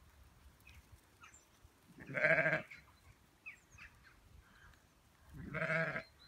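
Zwartbles sheep bleating twice: two calls of under a second each, about three seconds apart.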